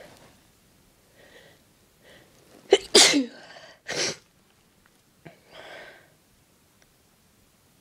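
A person's sneeze after a breathy buildup: a few faint catching breaths, then one loud sneeze about three seconds in. A second, shorter burst follows about a second later, and a fainter breath near six seconds.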